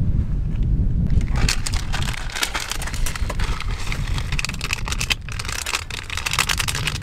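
Wind rumbling on the microphone, with a dense, irregular crackling patter over it that thickens from about a second and a half in.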